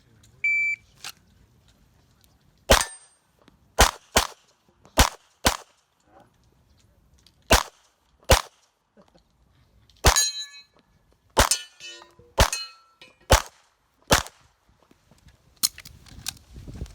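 A shot timer beeps once, then a 9mm competition handgun fires about fifteen shots, in quick pairs and singles with pauses between. A few shots are followed by the ring of hit steel targets.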